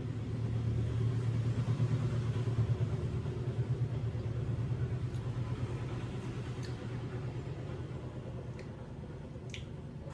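Low rumble of a passing vehicle, swelling over the first two or three seconds and then slowly fading, with a few faint clicks in the second half.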